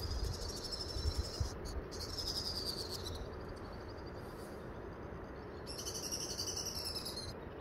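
An animal's high, buzzy trill, repeated in several stretches of one to two seconds, each sliding slightly down in pitch, over a steady background hiss, with a few low thumps near the start.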